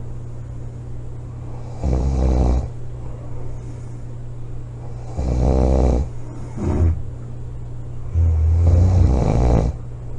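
A woman snoring heavily in her sleep: three loud rumbling snores about three seconds apart, with a short extra snort just after the second.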